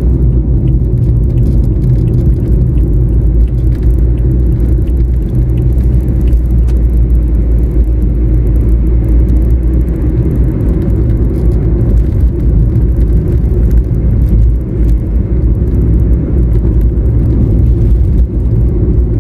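Steady low rumble of a car driving along a road, engine and road noise heard from inside the cabin.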